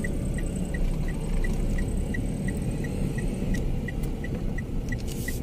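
Car driving, a steady low engine and road rumble heard from inside the cabin, with a short high electronic beep repeating about three times a second.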